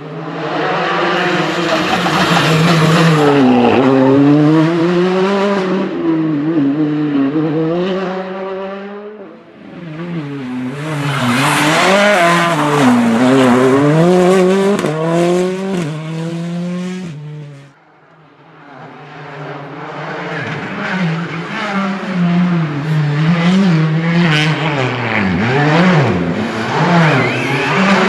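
Hyundai i20 R5 rally cars' 1.6-litre turbocharged engines passing at full attack, in three passes. The revs rise and fall sharply through quick sequential gear changes and braking for corners.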